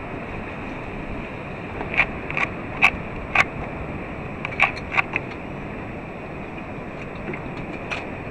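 Steady rushing noise of a boat on open water, with a run of sharp knocks and slaps from about two to five seconds in and one more near the end.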